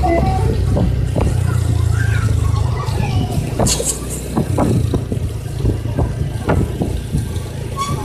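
Heavy truck's diesel engine running close by, a deep rumble that eases off about three seconds in, with a brief hiss about halfway and a few knocks.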